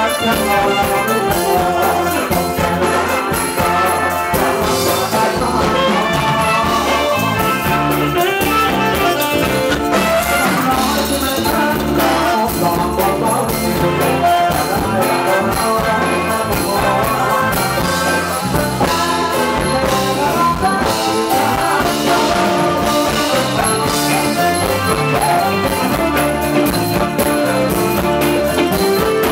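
Live band playing Thai ramwong dance music, loud and without a break, with electric guitar, keyboard and drum kit.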